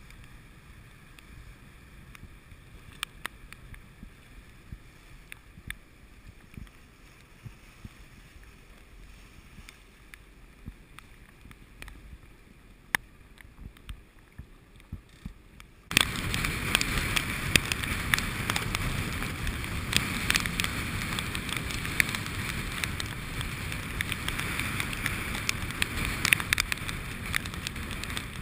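Wind and water noise aboard a sailing yacht under way: a low, even rush of water with scattered ticks and knocks, then, about halfway through, suddenly much louder wind buffeting the microphone over rushing water, with frequent sharp pops.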